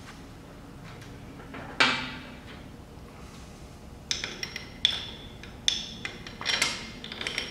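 Long steel cylinder bolts dropped by hand into the bolt holes of a 1997 Polaris Sportsman 500's cylinder, clinking metal on metal with a short ring. One sharp clink comes about two seconds in, then a run of lighter clinks from about four seconds on.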